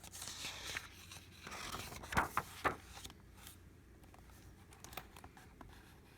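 A book page being turned: paper rustling for about three seconds, with two sharper crackles a little past two seconds in.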